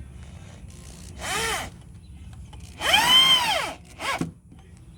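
Power drill driving screws into a wooden fence post: three short trigger pulls, the motor speeding up and winding down each time, the middle run the longest and loudest.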